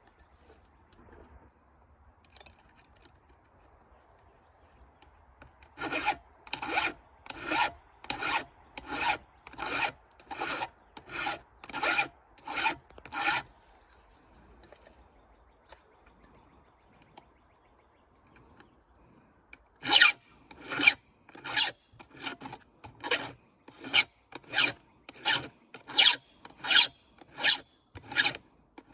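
Hand file rasping across a chainsaw chain's teeth in steady strokes, about one and a half a second, sharpening the chain. The strokes come in two runs, with a pause of several seconds between them.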